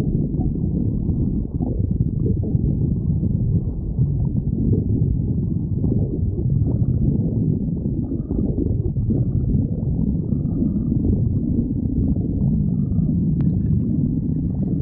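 A hungry stomach growling: a continuous low rumbling with many short crackling gurgles.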